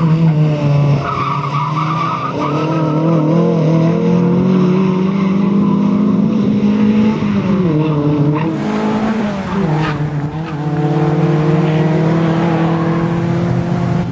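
Renault Clio II competition car's engine driven hard and held at high revs, its pitch dipping briefly a few times as it works through the course, with tyre squeal and scrubbing on the tarmac joining in more than halfway through.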